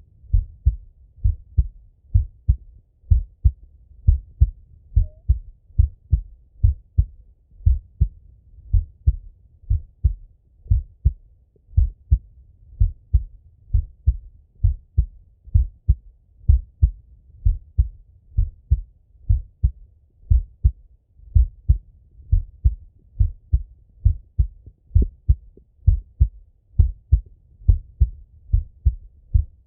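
A man's heartbeat heard through a Littmann stethoscope held to his own chest: a steady, slow lub-dub rhythm of low, dull thuds, about one beat a second.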